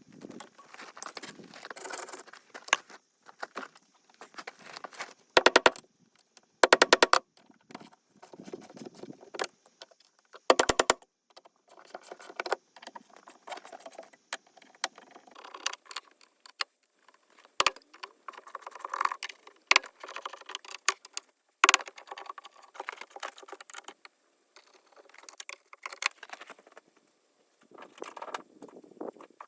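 Metal tools and small metal parts being handled, giving irregular clinks and rattles. Three short bursts of rapid, evenly spaced clicking stand out a third of the way in and are the loudest sounds.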